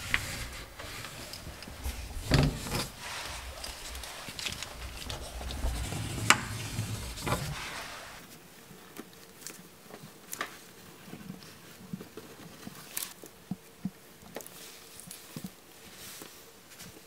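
Small plastic caulking scraper drawn along a fresh silicone bead at the tile-to-countertop joint: faint scraping with scattered sharp clicks. A low rumble of handling runs under the first half, then drops away.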